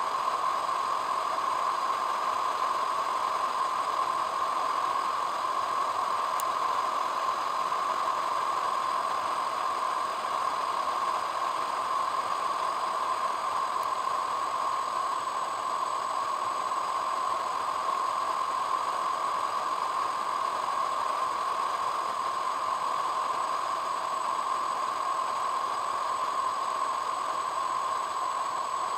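Steady hiss of road and wind noise from a car driving at speed, picked up by a car-mounted camera, with no change in level.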